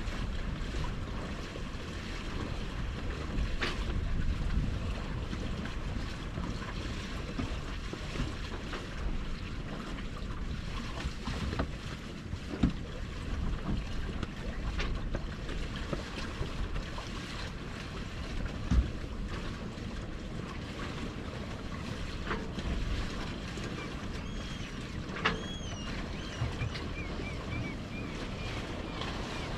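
Sailing yacht under sail: steady wind buffeting the microphone and water rushing along the hull, with a few sharp knocks from the boat.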